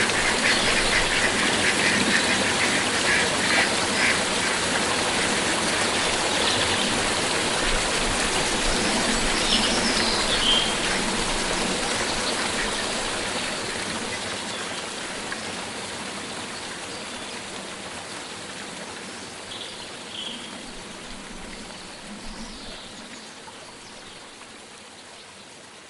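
Stream water running steadily, with a bird calling in quick repeated notes near the start and a few short chirps later on. The whole sound fades out gradually over the second half.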